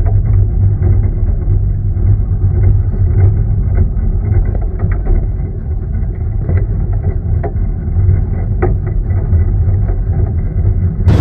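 Steady, muffled low rumble of a moving vehicle, with a few faint clicks in the middle.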